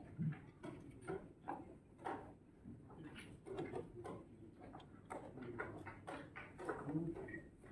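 Irregular clicks and taps of chess pieces being set down and chess-clock buttons being pressed on nearby boards, a few a second with no steady beat.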